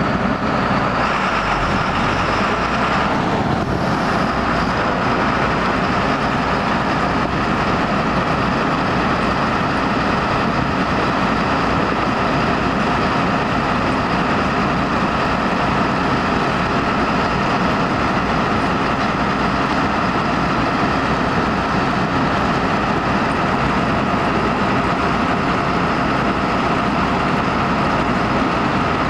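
John Deere 9600 combine running steadily while harvesting wheat. Its engine and threshing machinery make a continuous loud drone with a steady whine over it.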